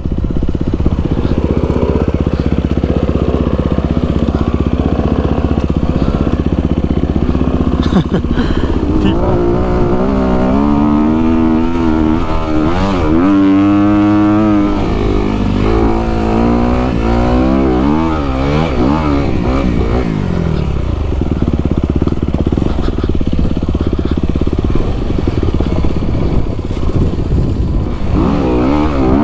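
Honda CRF250RX single-cylinder four-stroke dirt bike engine under way, revving up and down with the throttle. The pitch swings rapidly up and down from about nine to twenty seconds in.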